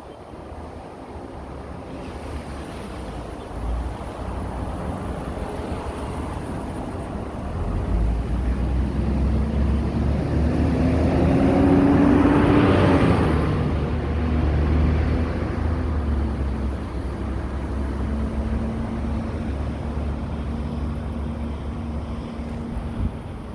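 Engine noise from road-works traffic: a low rumble builds, swells to its loudest about halfway through with a rising rush of noise, eases off, then settles into a steady hum.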